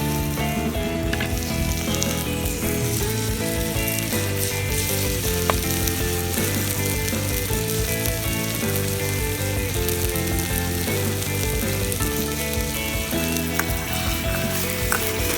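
Food sizzling as it fries in a pan over a campfire, a steady hiss, with melodic background music playing throughout.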